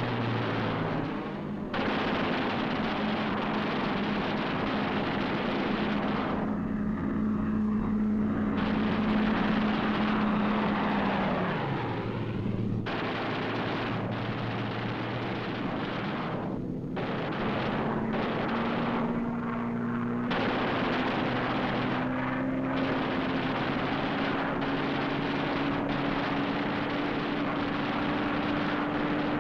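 Fighter plane engine drone mixed with machine-gun fire. The engine note drops about twelve seconds in, then slowly climbs again, and the mix changes abruptly several times.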